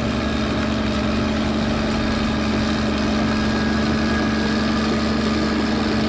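Bulldozer's diesel engine running steadily, a constant low drone with no change in speed.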